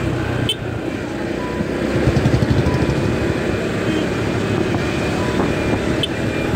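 Motorcycle engine running while riding along a road in traffic, with a couple of short horn beeps from other vehicles.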